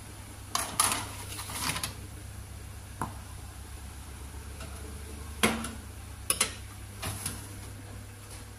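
Metal baking trays sliding and clattering against an oven's wire rack as they are pushed in: a run of scrapes in the first two seconds, then several sharp metal knocks, the loudest about five and a half seconds in. A steady low hum runs underneath.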